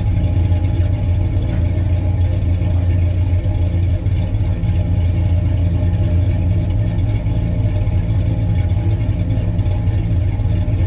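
LS V8 in a swapped Chevrolet Caprice idling steadily through Flowmaster 50 Delta Series mufflers, a low, even exhaust note.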